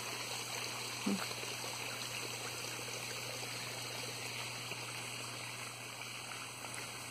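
Steady trickle and flow of running water in a small garden stream fed by ponds.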